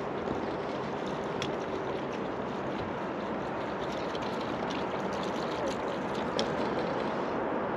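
Steady rushing, watery noise, with a few faint clicks scattered through it.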